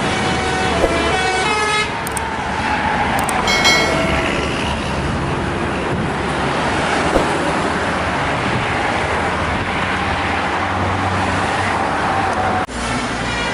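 Bus telolet horn playing a short stepping multi-note tune at the start, with another brief horn burst about three and a half seconds in, then the steady noise of passing traffic.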